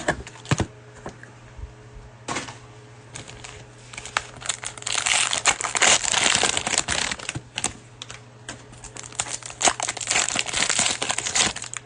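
Plastic cello-pack wrapper of basketball trading cards crinkling as the pack is opened, with cards clicking and sliding as they are handled. Two longer spells of crinkling, one about five seconds in and one near the end, with scattered clicks between.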